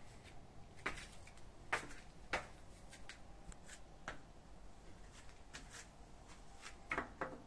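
Handling noise from a handheld camera: scattered, irregular sharp clicks and taps over a faint hiss. The loudest come about a second in and near the end.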